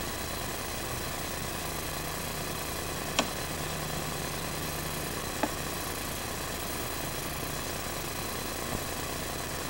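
Steady low mechanical hum with a constant hiss, like an engine or machine running at idle, broken by two sharp clicks about three and five and a half seconds in, and a fainter one near the end.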